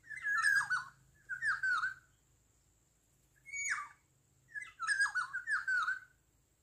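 Black-naped oriole (kepodang) calls: a series of short, fluty whistled phrases with sliding, falling notes, repeated with brief pauses between them.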